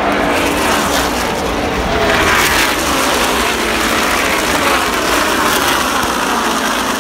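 NASCAR Cup Series stock cars' V8 engines racing past in a pack: a loud, continuous wall of engine noise, with overlapping pitches falling as each car goes by.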